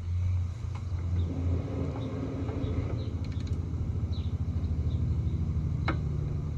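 Low engine rumble of a nearby motor vehicle: a steady deep drone with a fast pulsing, with a single sharp click about six seconds in.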